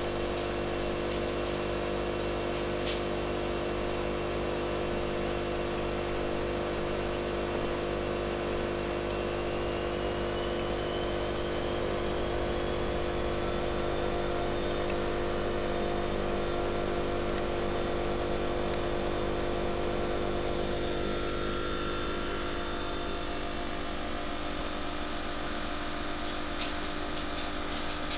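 Steady hum of running aquarium equipment, chiefly the filter pump moving water. A faint high whine slowly rises in pitch about a third of the way in.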